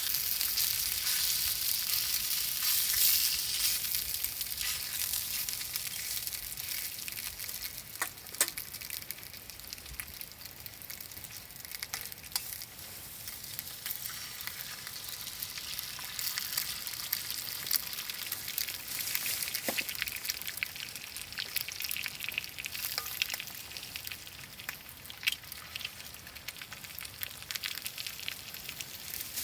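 Ham steak sizzling in a pan over a campfire: a steady frying hiss, loudest in the first few seconds and then settling, with occasional sharp pops.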